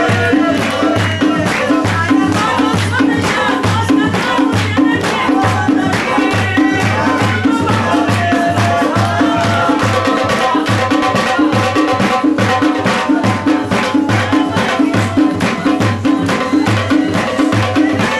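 Live Khowar folk music: a quick, steady drum beat with many hands clapping along and a melody line over it.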